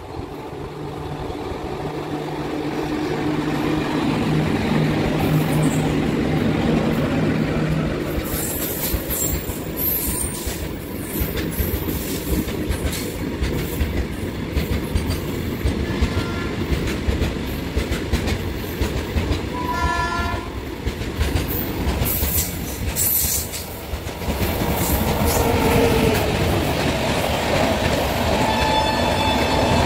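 An electric-hauled freight train runs through, starting with a steady low hum as the locomotive draws near, then the wagons' wheels clatter and click over the rail joints. About two-thirds of the way through, a train horn sounds once for about a second. Near the end a second train, an LHB-coached passenger train, rushes past close by and the sound grows louder.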